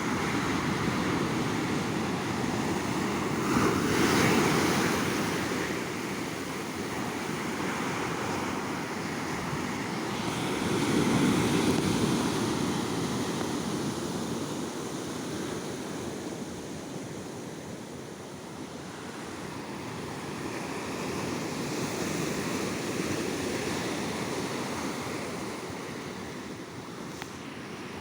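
Sea waves breaking and washing up a beach in continuous surf, swelling louder about every several seconds, with the strongest surges about four and eleven seconds in. Some wind on the microphone.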